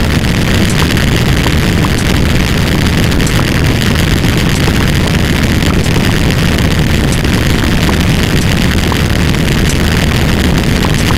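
Loud, steady rumbling noise, heaviest in the low range, running without a break.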